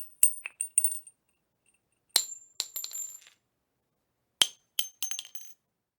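Gun sound effect: three short runs of sharp metallic clicks and ringing clinks, about two seconds apart, each opening with a louder click followed by several quicker, lighter ones.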